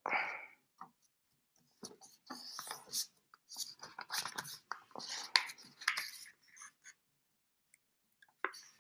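A sheet of printer paper being handled and folded: irregular crisp rustles and scrapes as it is turned over and the creases are pressed down, busiest in the middle, with a pause shortly before the end.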